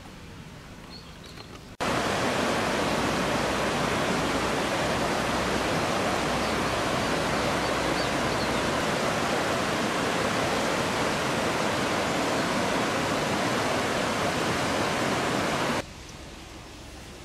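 A fast river rushing over rocky rapids: a loud, steady rush of water that cuts in about two seconds in and stops abruptly a little before the end, with quieter outdoor ambience on either side.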